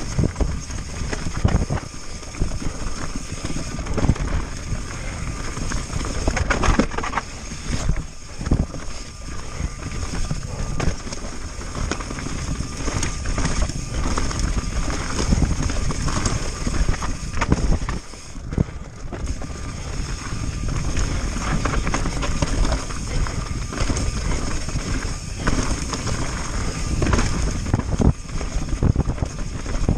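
Pivot Firebird 29 mountain bike descending a rocky trail: tyres rolling and knocking over loose rock, with the bike clattering and frequent sharp impacts, over steady wind rush on the microphone.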